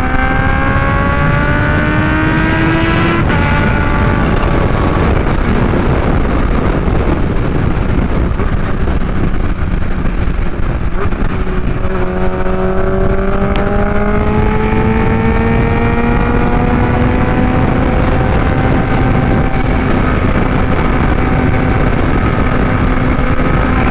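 Kawasaki Ninja H2's supercharged inline-four, through its Vandemon exhaust, pulling at high revs to heat-cycle the new headers, over a steady rush of wind. The engine note climbs for about three seconds and breaks off sharply. From about twelve seconds in it climbs slowly and steadily again.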